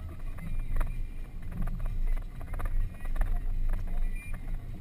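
Off-road vehicle heard from inside the cabin while driving a rough dirt track: a steady low rumble from the engine and tyres, with frequent knocks and rattles as the vehicle jolts over the bumpy ground.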